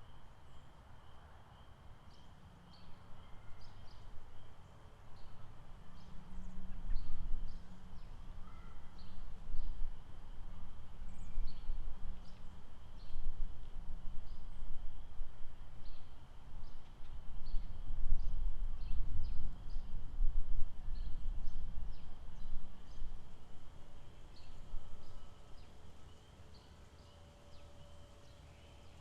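Lakeside nature ambience: scattered short bird chirps over a steady high drone, with a low, gusty rumble that swells through the middle and fades near the end.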